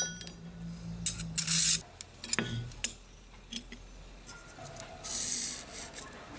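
Small workbench handling sounds: a sharp knock about two and a half seconds in as a wooden handle block is set against the knife on a steel plate, then a felt-tip marker scratching briefly across the wood as it traces the knife's tang, near the end.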